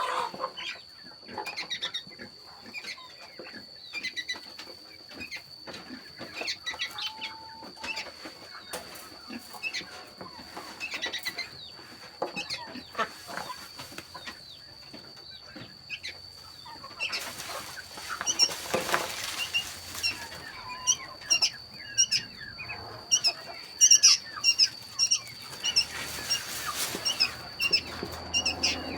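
Small birds chirping: many short, high calls that become busier and louder about halfway through, with two spells of rustling noise among them.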